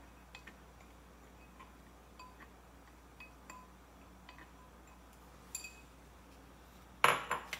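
Small glass prep cup clinking lightly as a silicone spatula taps and scrapes minced garlic out of it into a saucepan: faint short clinks, each with a brief ring, scattered every second or so. A louder clatter of glass or pan comes about seven seconds in.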